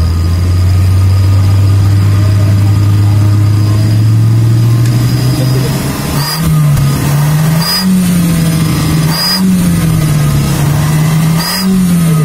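Car exhaust fitted with a clip-on turbo whistle tip while the engine is revved. For about the first half the engine is held at raised revs that climb slowly, with a faint high whistle over the exhaust note. Then the throttle is blipped about four times, each blip bringing a short chirp from the whistle. The whistle changes the exhaust note only a little, giving a mild turbo-like sound.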